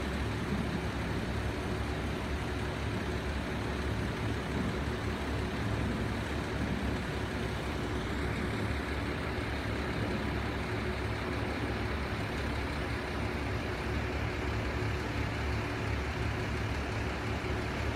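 KiHa 75 diesel railcar's engine idling steadily, a constant low hum with one faint steady tone over it.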